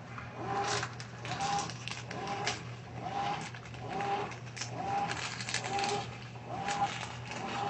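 Top-load washing machine agitating a detergent-heavy load: a short rising-and-falling whine with a splashy swish on each stroke, repeating about once every 0.85 s over a steady motor hum.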